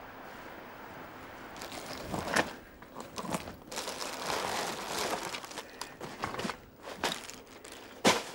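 Paper and plastic packages rustling and crinkling as hands rummage through a canvas sack, in irregular bursts that begin about two seconds in. A single sharp knock comes near the end.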